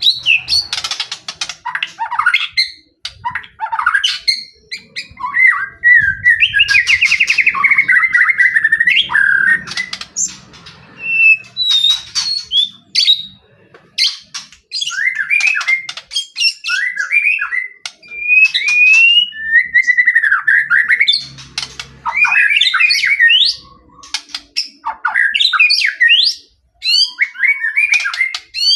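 White-rumped shama in full, energetic song: varied swooping whistled phrases, a rapid trill and harsh clicking chatter, broken by short pauses. This is the loud, continuous song used as a lure to provoke other shamas into answering.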